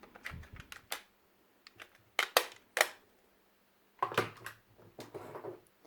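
Plastic magnetic building tiles clicking and clacking against each other as they are handled, with three sharp clacks close together near the middle and a few softer clicks and rattles around them.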